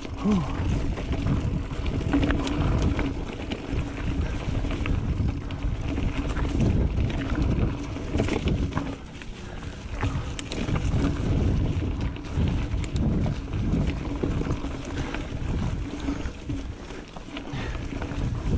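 Wind buffeting the microphone of a riding mountain biker, over the rumble of tyres on a dirt trail and scattered clicks and knocks from the bike rattling over bumps.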